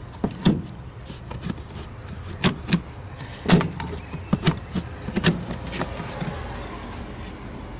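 Irregular clicks and knocks, about nine of them, of plastic trim parts being handled and fitted back around a car's pollen filter housing, over a low steady hum.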